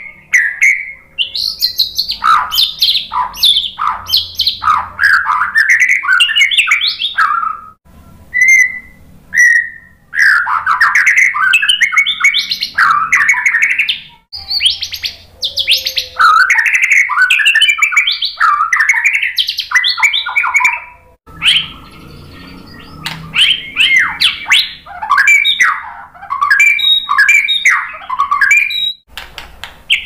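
White-rumped shama singing long phrases of rapid, varied whistled notes, broken by a few short pauses.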